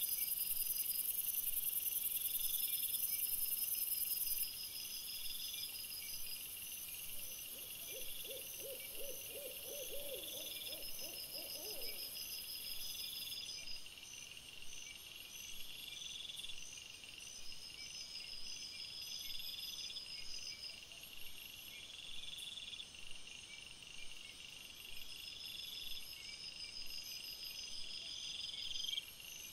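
Night insects such as crickets chirping in steady, evenly repeating high-pitched pulses. From about seven to twelve seconds in, a short run of lower, rapidly repeated calls joins them.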